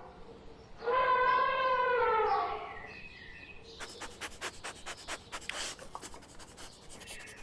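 An animal's long pitched call that drops in pitch at its end, followed after a short pause by a rapid run of scratchy clicks.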